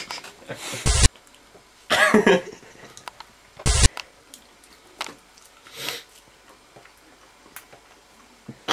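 Stifled laughter from a young man: three short bursts of laughing breath about one, two and nearly four seconds in, the middle one more voiced. After that, only faint small mouth sounds as he chews a banana.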